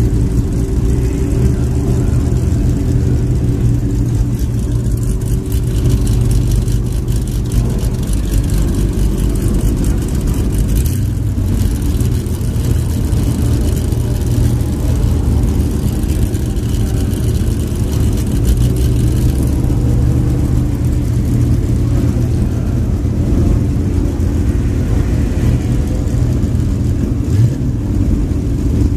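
A classic racing car engine running loudly and steadily at a constant pitch, with a brief sharp noise about eleven seconds in.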